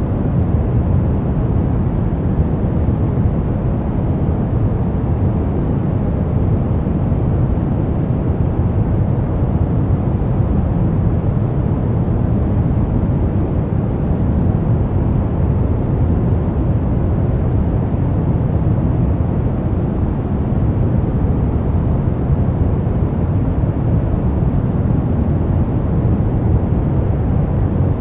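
Steady brown noise: an even, deep rumbling hiss, strongest in the low end and dull at the top, unchanging throughout.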